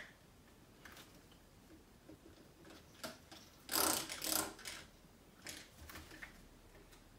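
Two quick squirts of window cleaner from a trigger spray bottle, one hiss right after the other about four seconds in. Around them are faint clicks of the trigger and handling of the bottle and cloth.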